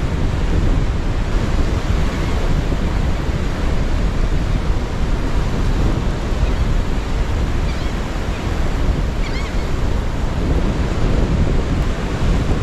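Gulf surf washing in steadily, with wind buffeting the microphone.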